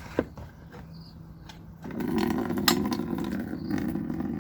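Water pouring steadily into a bucket, starting about two seconds in, after a couple of light knocks.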